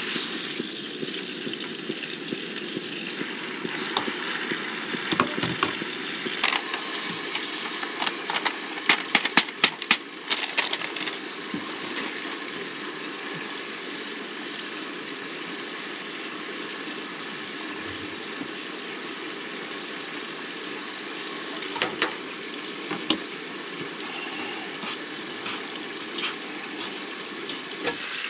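Steak and vegetables sizzling steadily in a frying pan on a camp stove. A utensil clinks and scrapes against the pan about four seconds in, again repeatedly a few seconds later, and briefly about two-thirds of the way through.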